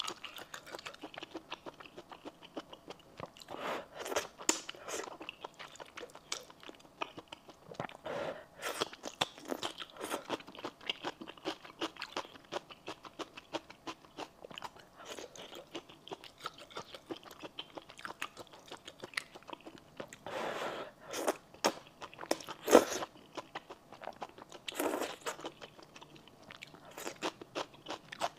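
Close-miked chewing and crunching of a mouthful of spicy stir-fried noodles with bean sprouts and green onion stalks, wet mouth clicks throughout and several louder crunchy bites, the loudest about three quarters of the way in.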